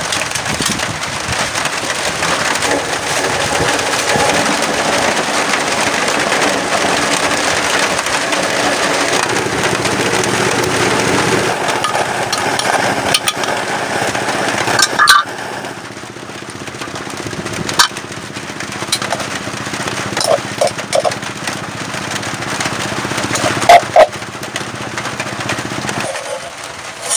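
A small engine running steadily, loud for roughly the first half, then dropping suddenly to a quieter hum that carries on until near the end. A few sharp knocks are heard along the way.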